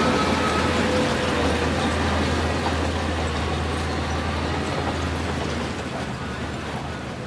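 Heavy diesel engine of earthmoving machinery running, a steady low drone that slowly grows quieter, with a faint whine in the first couple of seconds.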